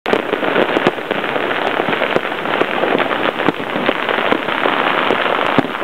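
Dense, unbroken crackle of many firecrackers and fireworks going off at once, with sharper single bangs standing out every second or so.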